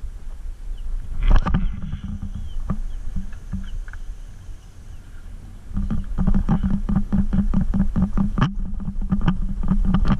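Spinning reel cranked fast to work a pencil popper, a steady whir with rapid clicking, from about six seconds in. About a second in there is a single loud swish-and-thump, likely the cast.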